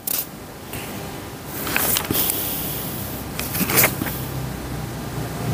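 Pages of a thick book being turned close to a microphone: a few short papery rustles, the strongest about four seconds in.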